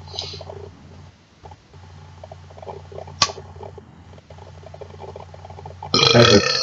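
Faint steady hum with light crackle, and a single sharp computer-mouse click about three seconds in. A man starts speaking near the end.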